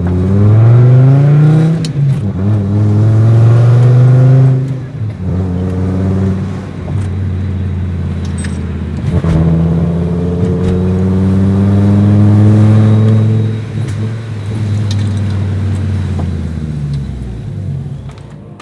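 Fiat Marea 2.4's five-cylinder engine revving hard under full acceleration through the gears. The pitch climbs, drops at a shift about two seconds in, and climbs again. It eases off briefly, pulls up once more for several seconds, then winds down near the end.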